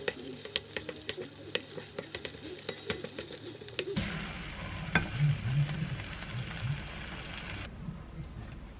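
A silicone spatula stirring and scraping tomato-sauced cauliflower rice in a frying pan: the food sizzles while the spatula clicks and scrapes against the pan. About four seconds in the sound shifts to a denser sizzle with one sharp knock, and near the end the sizzle drops away.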